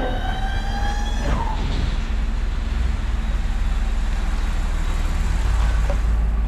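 Truck engine running with a steady low rumble. In the first second and a half a whine rises slightly in pitch over it.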